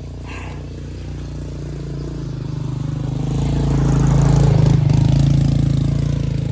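A motor vehicle's engine running and passing close by, growing louder to a peak about four seconds in and then fading.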